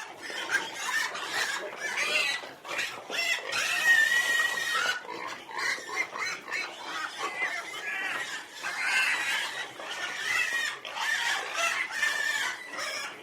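Pigs squealing without pause, several high squeals overlapping, with one long held squeal about four seconds in.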